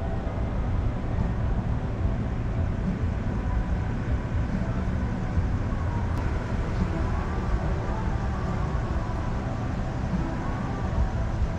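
Car engine idling with a steady low rumble.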